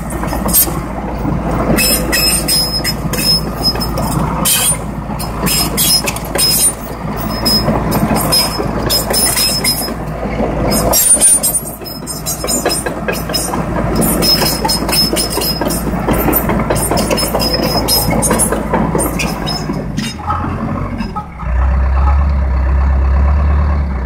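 Case 650K crawler dozer's diesel engine running as the machine travels, its steel tracks clanking over the sprocket and rollers. About twenty seconds in the clatter stops and the engine carries on with a steady low drone.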